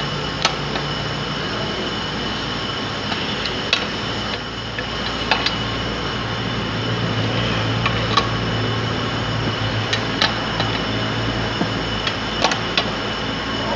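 A T-handle socket wrench turning the bolts of a Caterpillar engine's oil pump cover plate, with a few sharp metallic clicks and clinks scattered through, as the plate is tightened back down after its shim is removed. A steady hum runs underneath.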